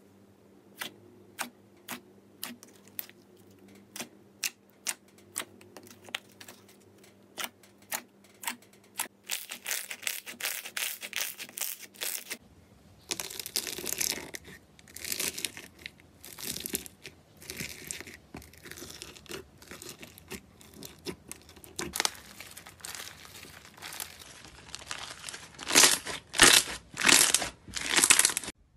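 Slime being handled by hand. For the first half come separate sharp clicks and pops as a smooth slime sheet is poked. After a cut about halfway, foam-bead slime crunches and crackles as it is squeezed, and near the end come several loud squishes as a lump of slime is pressed between the hands.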